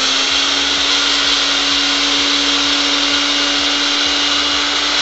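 Small electric mixer grinder running steadily at an even pitch, its blades grinding oats to powder in the plastic jar.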